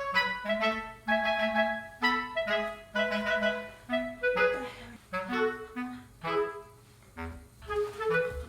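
Background music: a light, bouncy melody of short, detached notes on a wind instrument over a soft bass line.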